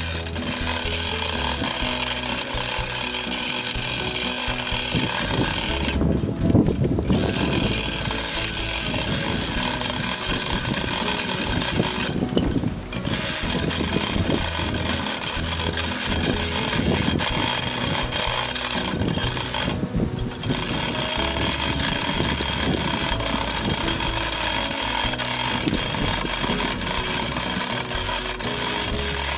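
Manual chain hoist being hauled to lift a heavy log: the hand chain rattles through the block while the pawl ratchets in quick clicks, with brief pauses between pulls.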